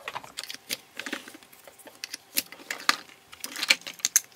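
Hard plastic toy pieces clicking and knocking together, in quick irregular taps as they are handled.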